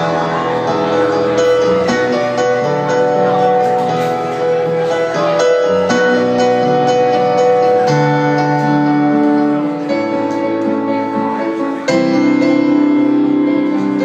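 Live band playing an instrumental passage of a pop song, led by guitar, with sustained chords that change about every two seconds.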